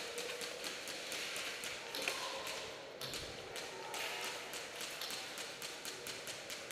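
Irregular sharp clicks and taps, several a second, typical of airsoft guns popping and BBs striking around the field.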